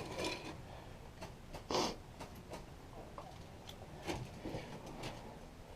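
Faint rustling with scattered small clicks and knocks, and one louder rustle about two seconds in.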